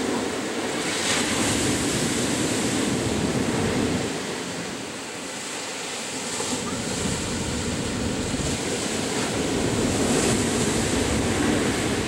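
Ocean surf breaking and washing up a sandy beach: a continuous rushing of water that swells louder about a second in and again near the end, easing off in between.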